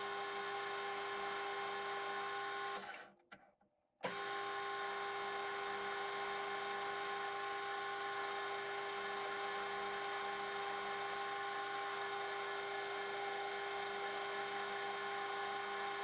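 Metal lathe running with a steady motor and gear whine while turning a point on a steel shaft. The sound cuts out completely for about a second near three seconds in, then resumes unchanged.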